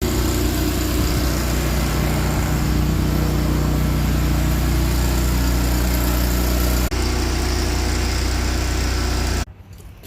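An engine running steadily at an even speed, with a brief dropout about seven seconds in, then stopping abruptly about nine and a half seconds in.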